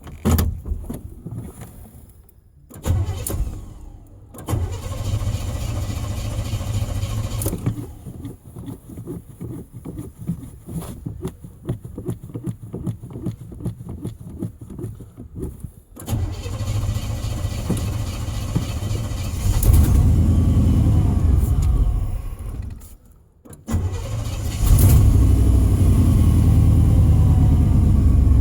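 Truck engine with a failing fuel pump, kept going by pumping the gas pedal: it stumbles and nearly dies twice, turns over with a rapid even chugging for several seconds until it catches, revs up, cuts out briefly, then runs again.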